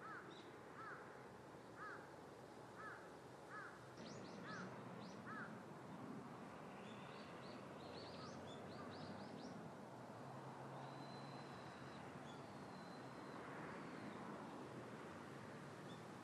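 Faint outdoor ambience with birds calling: a string of short, repeated calls about once a second for the first five seconds, then higher chirps and quick rising trills, over a low steady rumble.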